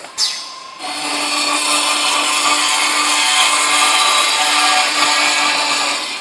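Metal-cutting circular saw (cold saw) cutting through metal stock: the spinning blade bites in about a second in and cuts with a loud, steady screech for about five seconds, easing off near the end.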